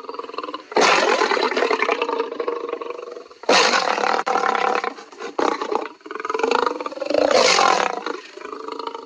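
A lion roaring and growling: loud roars begin about a second in, about three and a half seconds in, and again near seven seconds, with lower, rumbling growls between them.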